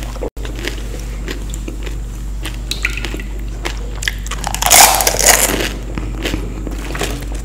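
A person eating crisp fried Indian street snacks close to the microphone: repeated crunchy bites and chewing, loudest about five seconds in, over a steady low electrical hum.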